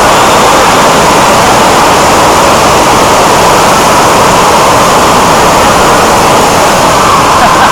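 Steady, loud rushing noise with no distinct events, strongest in the middle range.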